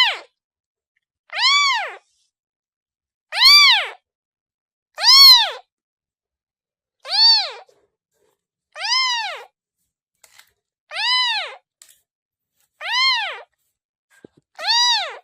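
A kitten meowing over and over, about one short call every two seconds, each call rising then falling in pitch.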